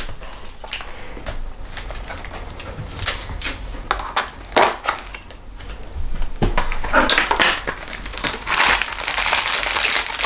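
Small clear plastic packet crinkling and crackling as it is handled and opened to get at clip-on earrings, in scattered bursts that grow denser and louder about two-thirds of the way in.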